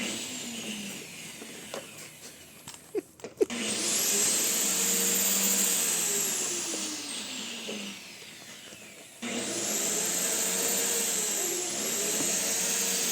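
Small household appliance's electric motor switched on and off: a whine winds down, a few clicks, then the motor starts about three and a half seconds in, its pitch rising and then sagging, dies away, and starts again loud just after nine seconds.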